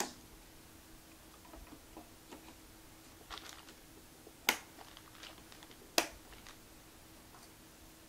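Plastic retention latches of DDR3 memory slots clicking shut as RAM sticks are pressed into the motherboard, with two sharp snaps about a second and a half apart and a few lighter ticks of handling. A faint steady hum runs underneath.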